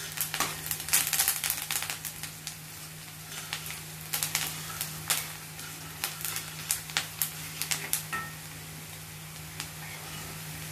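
Onions sizzling as they fry in oil in a kadai, with a steel spoon scraping and tapping against the pan as they are stirred. The spoon strokes come thickest in the first two seconds and again from about four to eight seconds in, leaving mostly the sizzle near the end.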